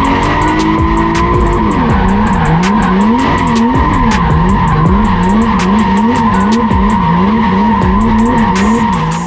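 Turbocharged BMW M52 straight-six in an E30 drift car revving up and down in quick, even swings, about twice a second, with tyres squealing steadily under it. The revs hold high for the first second or so before the swings begin.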